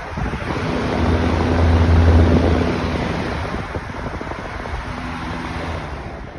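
Lasko 3733 box fan running: a loud rush of air over a steady low motor hum. It swells to its loudest about two seconds in, then eases off, with wind buffeting the microphone.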